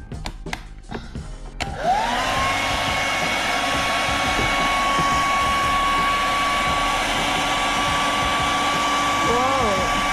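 Rowenta hair dryer switched on at maximum speed about a second and a half in. It starts with a sudden rush of air and a motor whine that rises in pitch, then runs steadily.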